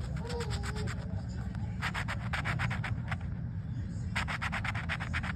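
Coin scratching the coating off a scratch-off lottery ticket: three bursts of rapid back-and-forth scraping strokes with short pauses between them.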